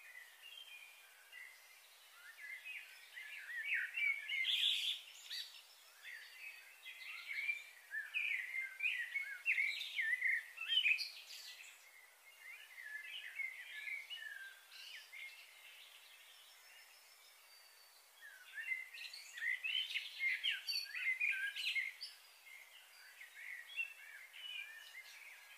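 Small birds chirping and twittering in quick, busy clusters of short notes, with a quieter stretch in the middle before they pick up again.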